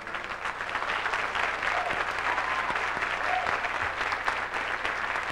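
Theatre audience applauding steadily after a musical number.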